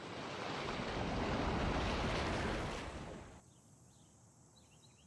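A rush of noise swells for about three seconds, then drops away abruptly to a low background with a few faint high chirps.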